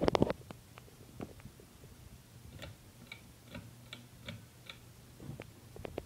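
Hampton Bay Cameron II ceiling fan running, with a steady low motor hum and light ticking. In the middle, the ticks come evenly, about two to three a second. A burst of sharper clicks and knocks comes at the very start.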